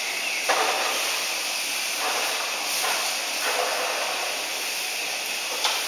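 A steady hiss, with a hippopotamus chewing hay in rough, noisy patches about a second long, one after another.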